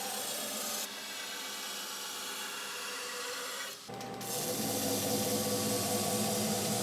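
Belt grinder grinding a hardened leaf-spring steel sword blade: a steady rasping hiss. About four seconds in it changes abruptly to louder grinding with a steady motor hum under it.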